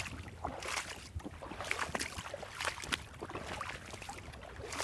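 Creek water being splashed and sloshed by hand or foot: a run of uneven splashes over the creek's steady flow.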